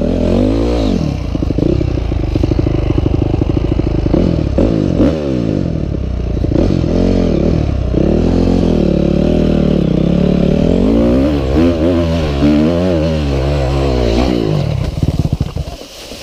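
Dirt bike engine being ridden on a trail, its pitch rising and falling as the throttle is worked, with clatter from the bike over rough ground. Near the end the engine note breaks up into a few quick knocks and dies away as the bike ends up on its side.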